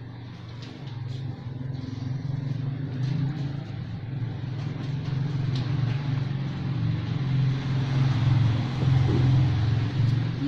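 A motor vehicle engine running, a steady low drone that grows louder over several seconds and eases off slightly near the end, with a few light clicks over it.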